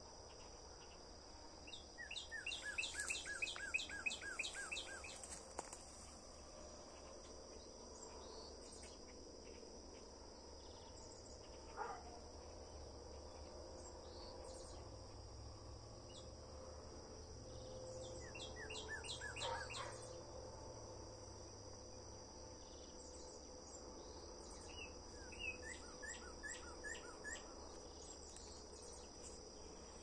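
Steady high-pitched drone of an evening insect chorus, with a songbird singing a quick run of repeated down-slurred notes three times: near the start, around the middle and near the end.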